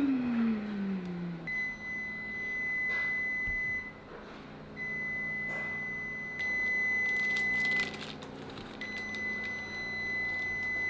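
Electronic timer sounding three long, steady, high beeps, each about three seconds long with short gaps between them, signalling that one minute of baking time is left. At the very start, a louder low sound slides down in pitch.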